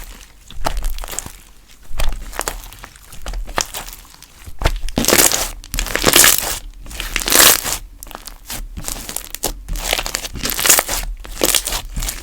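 Purple galaxy slime being squished, stretched and folded by hand, in uneven bursts of noise that grow louder and come more often from about five seconds in.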